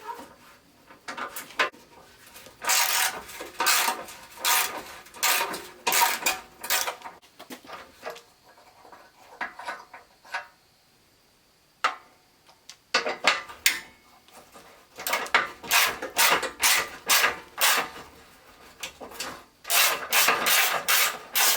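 Repeated rasping, ratcheting strokes, about two a second, in two runs with a pause between. This is a hand socket ratchet being worked to back out the bumper's remaining bolts.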